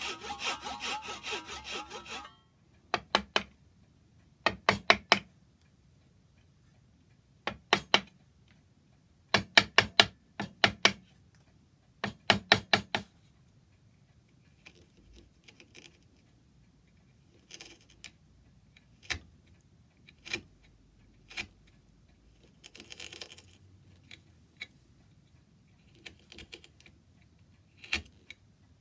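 A hand saw cutting wood in quick strokes that stop about two seconds in, then sharp hammer taps on wood in groups of two to four. Fainter knocks, clicks and a short scrape follow.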